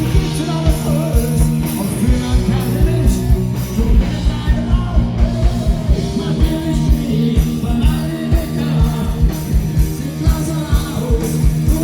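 Live rock band playing an instrumental passage with a steady drum beat and bass line.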